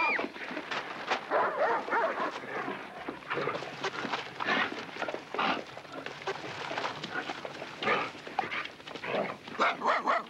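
Several dogs barking and snarling in a scuffle, with a rapid, irregular run of short calls and yelps.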